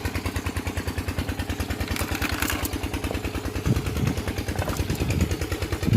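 A small engine running steadily at idle with an even, rapid thumping beat.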